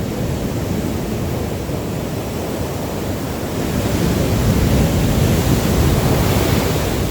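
Surf washing up on a sand beach, mixed with wind on the microphone; a wave swells louder about four seconds in and eases off near the end.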